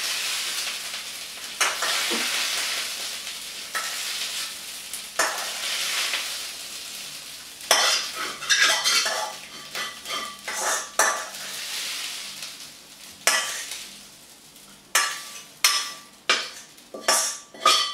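Fried rice sizzling in a hot wok as it is tipped and pushed out onto a plate, with a few louder surges of rice sliding in the pan. From about eight seconds in, a metal spatula repeatedly scrapes and knocks against the wok.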